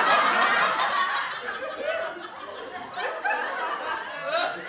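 Laughter and chuckling, loudest at the start, easing off after a couple of seconds and starting up again near the end.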